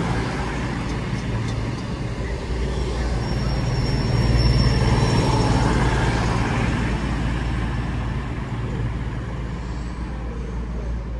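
Class 221 Super Voyager diesel-electric multiple unit running past along the platform, its underfloor diesel engines humming under a rush of wheel and body noise. The sound is loudest about four to five seconds in and fades as the rear of the train draws away.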